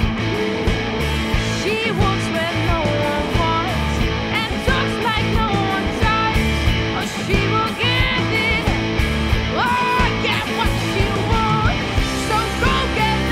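Rock music: a full band song with electric guitar, a pitched melody line bending and wavering over a steady low pulse.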